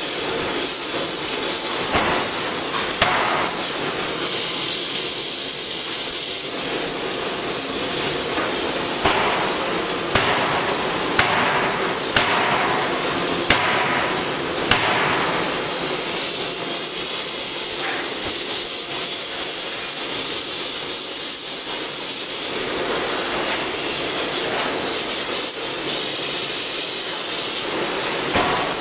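6-ton hydraulic die-forging hammer striking a hot crankshaft blank: a few single sharp blows early on, a run of about six blows roughly a second apart in the middle, and one more near the end. A steady loud hiss runs underneath.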